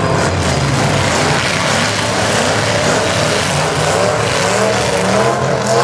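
Engines of several battered demolition-derby pickup trucks running and revving, their pitch rising and falling over a steady wash of engine noise.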